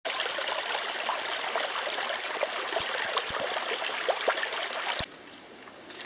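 A shallow stream babbling and trickling over stones. It cuts off suddenly about five seconds in, leaving a much quieter background.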